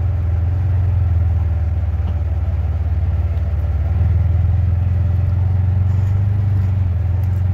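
Engine of a 2020 Polaris Ranger Crew side-by-side running steadily at low speed while crawling through a tight rocky trail, a steady low drone that lifts slightly about four seconds in.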